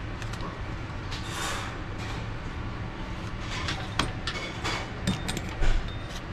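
Sheet-metal air-handler panel and parts being handled overhead: a scrape, then several sharp metal clicks and knocks, with a dull thump near the end. A steady low hum runs underneath.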